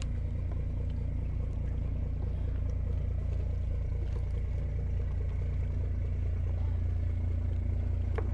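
Steady low drone of an idling engine with a faint constant hum above it, unchanging throughout, and a single click near the end.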